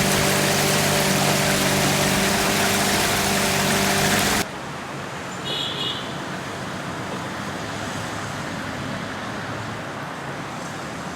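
A motor running steadily under loud rushing noise, which cuts off abruptly about four seconds in to a quieter, steady outdoor noise.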